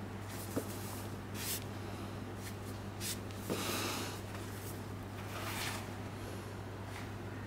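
Gloved hands handling a paperback manga volume: several soft swishes and rustles of paper and cover as it is tilted, turned over and bent open at the spine, over a steady low hum.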